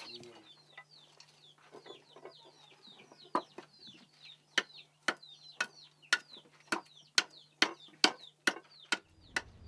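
Chickens clucking and chirping in short, high, falling calls. From about three seconds in, sharp knocks come about twice a second as a large blade chops into a wooden block.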